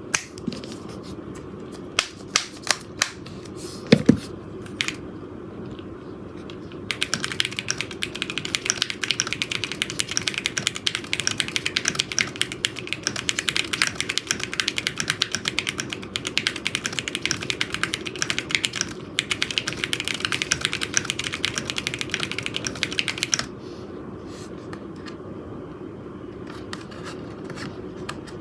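Typing on an Akko ACR Pro 75 acrylic mechanical keyboard with JWK nylon black linear switches: a few separate keystrokes, then fast, continuous typing from about seven seconds in until about five seconds before the end.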